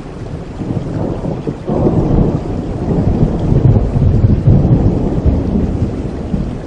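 Thunder rumbling over steady rain. The deep rumble swells about a second and a half in and rolls on, loudest in the middle.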